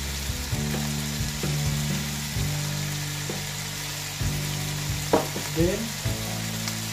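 Pork cubes, onion and tomato sizzling as they sauté in a pan, with a metal spoon stirring and clicking against the pan every so often.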